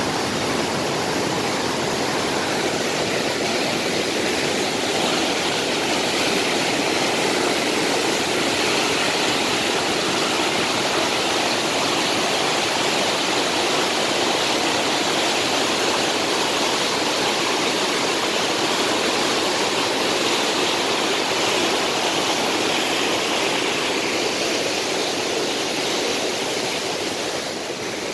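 Muddy floodwater of a swollen mountain river rushing and churning over rocks in a steady, loud roar, slightly quieter near the end.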